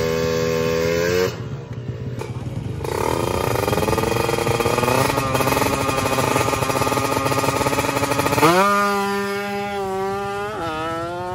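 Drag-race motorcycle engine revved and held high, dropping back after about a second, then revved up again while waiting at the start line. About eight seconds in it launches hard, the pitch climbing as the bike accelerates away, with a dip at a gear change near the end.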